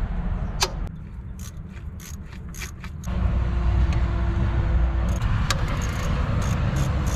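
Metal clicks and clinks of a hand wrench on the power steering pump's adjusting bolt of a Honda Accord's four-cylinder engine, loosened to free the belt tension: one sharp click, then a quick run of light clicks, then a few more later. A low rumble underneath gets louder about three seconds in.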